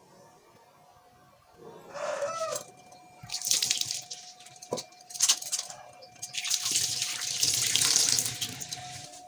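Tap water running in two bursts, the first about a second long and the second about two seconds, with a few sharp clicks between them. A chicken calls briefly just before the first burst.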